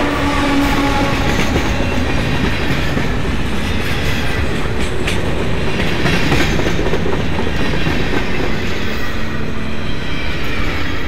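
A train passing close by: a steady, loud rush of rolling cars, with occasional clacks of the wheels over the rail joints. It cuts in suddenly, replacing music.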